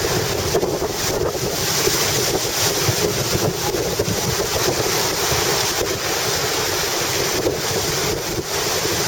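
Strong wind of over 10 m/s buffeting the microphone in a steady, rough rush, with small choppy surf breaking underneath.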